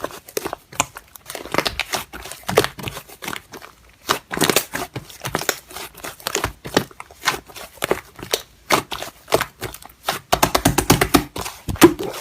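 Slime being squished and stretched by hand, giving irregular sticky clicks and crackling pops that come thickest near the end.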